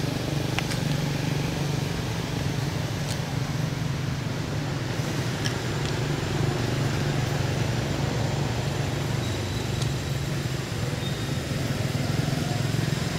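Steady low engine hum of motorbike traffic, with a few faint clicks.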